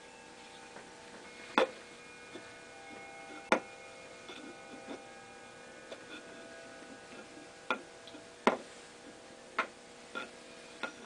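Sharp wooden clicks and knocks at irregular intervals, about seven, as a floor-supported spindle is twirled by hand and its tip knocks on a tiled floor while plying yarn. A faint steady hum runs underneath.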